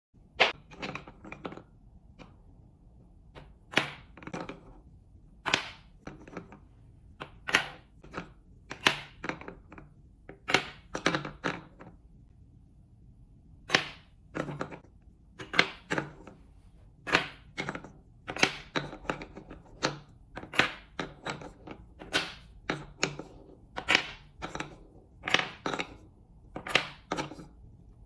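Wooden balls knocking against a wooden spoon and dropping into wooden cups. The sharp clacks come about every second, often two or three in quick succession as a ball bounces and settles in its cup.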